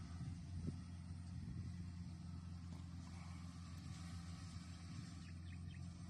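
Rice combine harvester's engine running steadily while it cuts the crop, a faint, even low drone.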